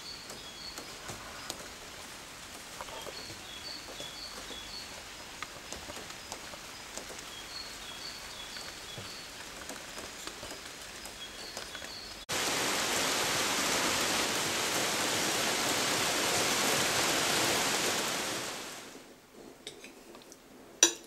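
Light rain falling, with a songbird singing short chirps in repeated phrases. About twelve seconds in, a much louder steady rushing noise of rain starts suddenly, lasts about six seconds and then fades away.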